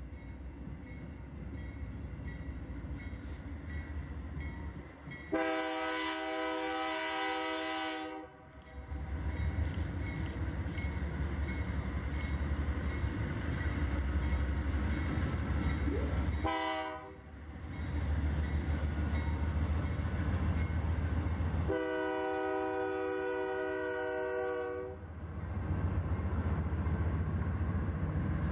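A freight train's lead diesel locomotive, painted in BNSF orange, sounds its chime horn three times as it approaches and passes. The first blast is long, starting about five seconds in; a short one comes about halfway through; another long one comes about three-quarters through. Between the blasts the diesels rumble low as they pass, with tank cars rolling by behind.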